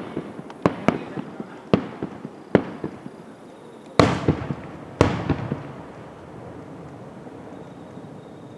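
Fireworks bursting overhead: a run of sharp bangs, then two louder booms about a second apart halfway through, each followed by an echoing rumble that fades away.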